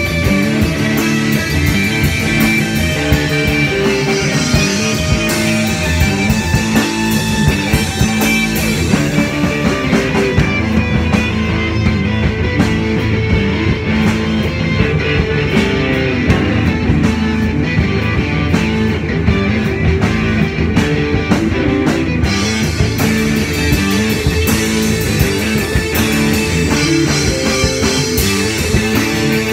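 Live improvised rock jam: electric guitars and a drum kit playing together, loud and continuous. The bright cymbal wash falls back for a stretch in the middle while the guitars and drums carry on.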